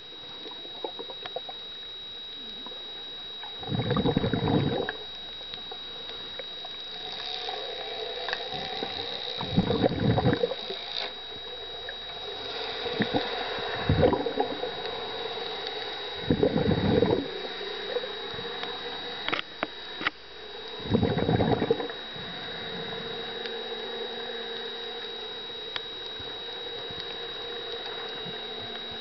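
Muffled water noise of a camera recording in the sea while snorkeling, with a thin steady high whine throughout. About five louder rushes of water, each around a second long, come every few seconds.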